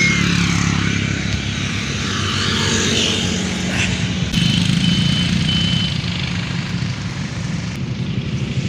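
Steady low rumble with a hiss over it, and a faint thin high tone that comes and goes a few times around the middle.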